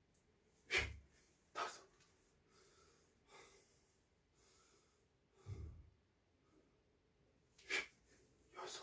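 A man's short, forceful exhalations with martial-arts movements, five in all. Two of them have a low thud beneath.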